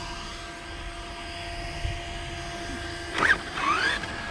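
Radio-controlled model's electric motors whining steadily, then a few quick rising and falling whines a little after three seconds in.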